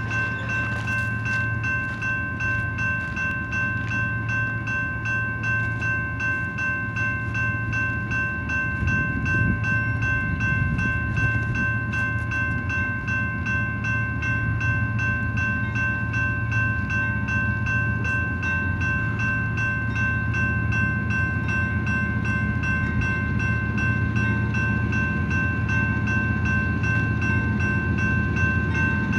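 Railroad grade crossing warning bell ringing continuously in rapid, even strokes while the crossing is activated and the gate arms lower, over a low rumble.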